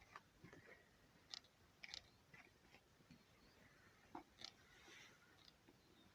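Near silence with a scattering of faint, irregular small clicks and ticks.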